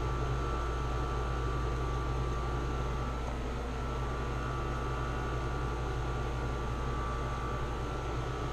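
Room air conditioner running steadily: a constant low hum and airy noise with a faint high whine over it.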